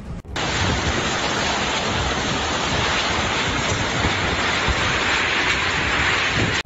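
Strong storm wind rushing in a loud, steady roar that cuts in abruptly just after the start.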